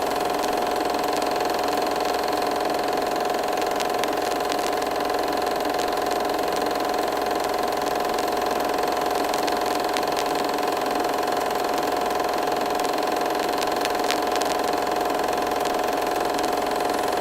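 Film projector running: a steady mechanical whir with a constant hum and scattered faint clicks.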